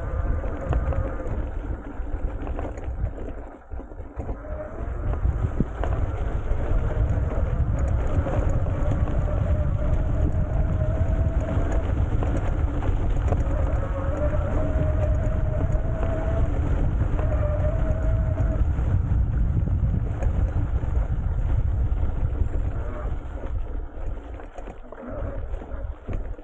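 Electric bike being ridden over a mown field: wind buffeting the handlebar-mounted microphone and tyres rumbling on the stubble, with a faint motor whine rising and falling in pitch through the middle.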